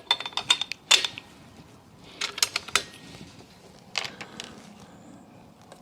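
Small mechanical clicks and rattles in three short clusters, from handling the .22 rifle and its ammunition at the shooting bench while changing to a new box of rimfire match rounds.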